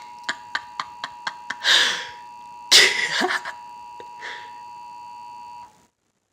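Emergency Alert System two-tone attention signal sounding steadily, then cutting off abruptly near the end. Over it, a run of about six quick clicks in the first second and a half, and two short breathy bursts from a person's voice.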